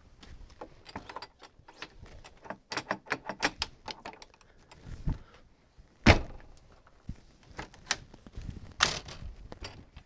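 RV entry door fitted with an aftermarket Onnais keypad lock being worked: the latch and handle click and rattle, and the door shuts with a loud thud about six seconds in and again near the end. The rattle is one the installer is still not happy with after the install.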